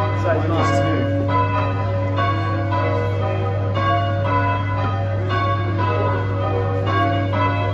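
A ring of three church bells, the tenor weighing 6-0-6 in B, being rung full circle in change ringing: an even, continuous succession of bell strokes, each one ringing on. A steady low hum runs underneath.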